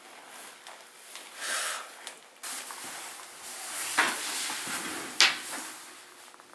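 Quiet room tone in a small enclosed space with soft rustling and two short knocks, about four and five seconds in.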